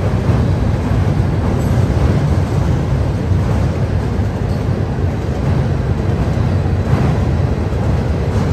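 Florida East Coast Railway freight train cars rolling across a steel railroad drawbridge: a steady low rumble of wheels on rail, with a few faint clacks.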